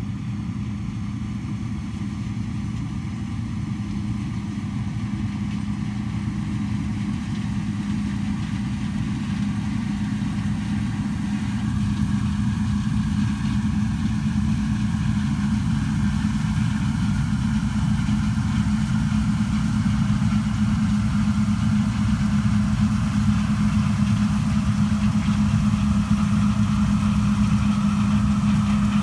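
Heavy diesel engine running steadily with a constant low hum, gradually getting louder.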